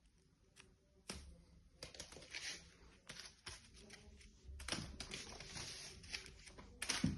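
A crumpled paper ball crinkling and tapping in irregular bursts as a cat bats and pounces on it, the loudest rustle near the end.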